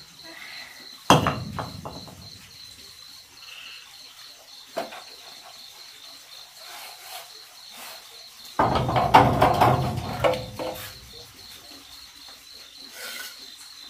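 Crickets chirping steadily in the background. About a second in there is a sharp knock of a brick set down on concrete. Later comes a couple of seconds of scraping and clattering as masonry is worked on the concrete stove.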